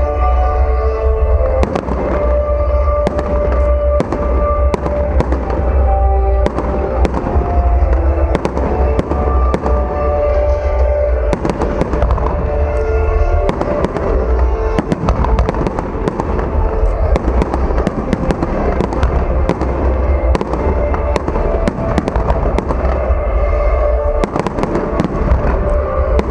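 Fireworks bursting in rapid, continuous volleys of bangs, with music playing throughout.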